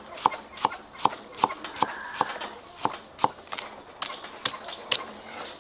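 Chinese cleaver chopping ginger and scallions on a thick round wooden chopping block: a run of sharp knocks, about two to three a second.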